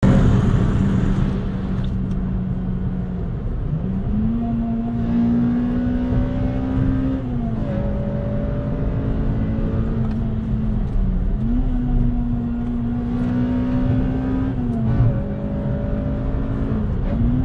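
Honda Civic Type R's 2.0-litre i-VTEC four-cylinder engine heard from inside the cabin, being driven hard: its note climbs steadily and then drops back several times, about every three to four seconds, over constant road and wind noise.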